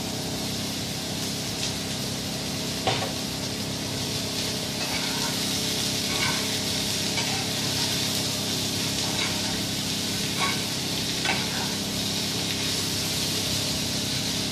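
Potato and sliced onion sizzling in hot oil in a frying pan while being stirred with a spatula, a steady frying hiss with a few sharp clicks of the spatula against the pan.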